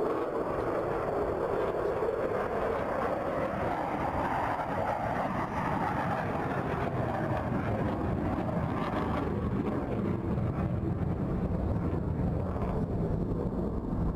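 Jet aircraft engine noise on a flight line: a steady, loud rush that swells slightly and eases off a few seconds in.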